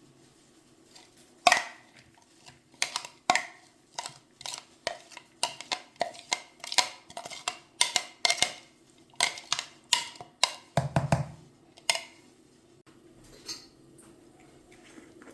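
Dishes and cutlery clinking and clattering in a quick run of sharp strikes for about ten seconds, with a dull thump near the end.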